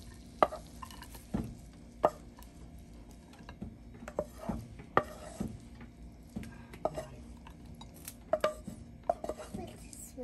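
Spatula scraping and knocking against a frying pan and a ceramic plate as stir-fried garlic chives and shrimp are slid onto the plate: irregular clicks and knocks with soft scraping between them.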